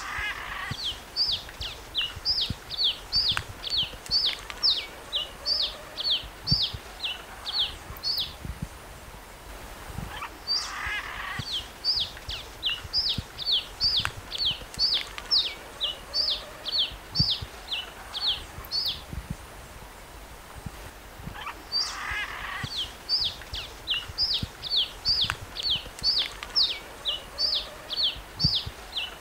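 Red-capped cardinal singing: three long phrases of quick, sharp, down-slurred high whistled notes, about three notes a second, each phrase lasting some eight seconds with short pauses between.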